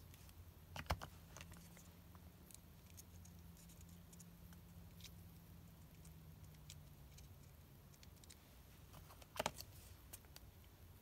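Quiet hand work with paper loops and a tacky glue bottle: faint small ticks and rustles, with two brief sharper clicks, about a second in and again near the end, over a low steady hum.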